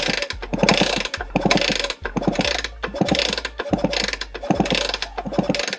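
Yamaha DT50 two-stroke engine being kicked over again and again, about once a second, turning over with a mechanical clatter but not starting, with the spark plug out to check for spark. The spark comes only intermittently, a fault the owner puts down to a failing ignition switch.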